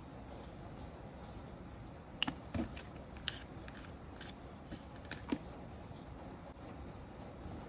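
A scatter of short clicks and scrapes from about two seconds in: a plastic scraper card and other nail-stamping tools knocking and drawing across a metal stamping plate as excess polish is cleared from the etched designs.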